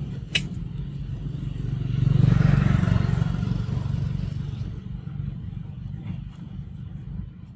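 A motor vehicle's engine rumble swells as it passes, loudest about two to three seconds in, then fades away.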